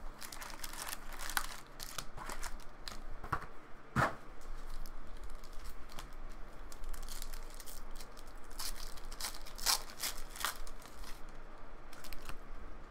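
Trading-card pack wrappers being torn open and crinkled by hand, a run of irregular crackles and rips, with the cards inside handled.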